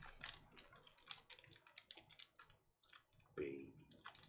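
Faint, irregular clicking and tapping, with a brief voice-like sound about three and a half seconds in.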